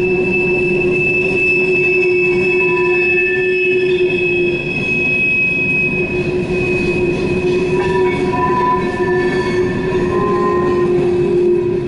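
Empty CSX coal hopper cars rolling past, their steel wheels squealing in several steady high tones over a continuous low rumble, the flange squeal of cars taking the curve of a wye.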